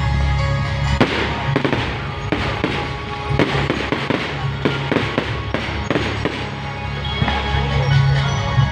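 Fireworks display: a rapid run of bangs and crackles, several a second, with music playing underneath.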